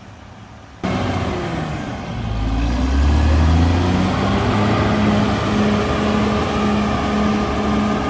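CAT D6R XL crawler bulldozer's diesel engine working under load as the dozer pushes soil. The sound comes in abruptly about a second in, its note shifts, and then it settles into a heavy, steady drone.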